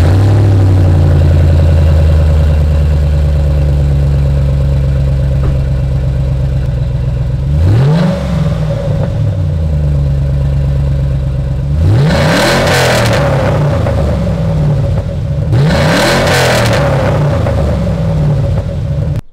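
A 2006 GMC Sierra 1500's Vortec engine idles steadily through a newly fitted Flowmaster Super 10 muffler with a turndown tip, heard from underneath the truck. It is blipped into three short revs, about eight, twelve and sixteen seconds in, each rising and falling back to idle.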